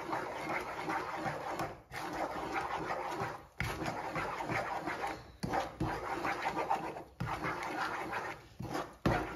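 A wooden spatula stirring and scraping hot melted sugar and Nutella (homemade sugar wax) around a nonstick frying pan, with the mixture crackling and sizzling. The sound drops out briefly every couple of seconds.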